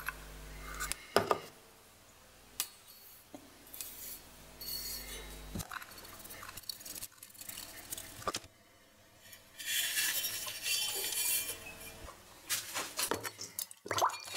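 A small brush clinking against a bottle as it is dipped into bluing liquid, with a few light knocks and short scratchy passes as it is brushed over a steel tube.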